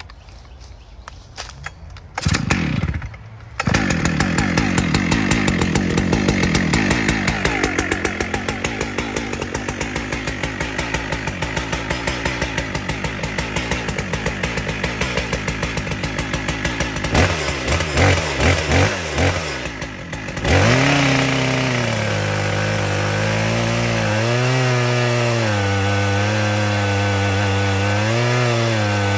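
Large two-stroke chainsaw being pull-started: a few cord pulls, a brief firing about two seconds in, then it catches and runs at idle from about three and a half seconds in. After a few throttle blips it goes to full throttle about twenty seconds in, its pitch wavering under load as it rips lengthwise through a log on a chainsaw mill.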